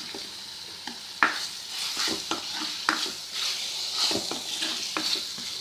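Chicken and onion-tomato masala sizzling in a frying pan while a spatula stirs it, with irregular scrapes and knocks of the spatula against the pan. The chicken is still cooking through in the masala.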